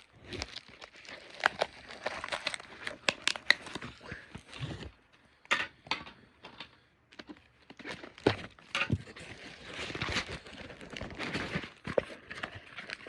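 Packaging crinkling and tearing as a small package is worked open by hand, in irregular rustles with sharp crackles, pausing briefly about halfway through.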